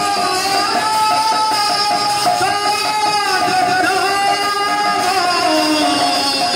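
Devotional nama sankirtan (kirtan) music playing steadily, with singing and instruments in long sustained melodic lines.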